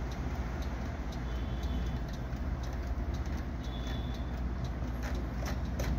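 Steady low room hum with faint scattered clicks.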